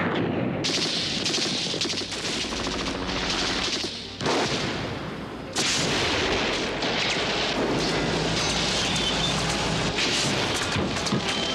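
Sustained rapid gunfire from automatic weapons, as in a film's action soundtrack. It dips briefly about four seconds in, then an explosion and more volleys of gunfire cut back in.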